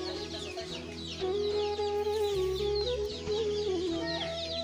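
Chicks peeping: many short, high, falling cheeps, one after another, over soft background music with long held notes.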